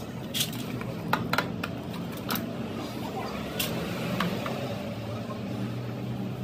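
Scattered sharp metal clinks and knocks from the cut-off saw's parts being handled and fitted together, over a steady low hum.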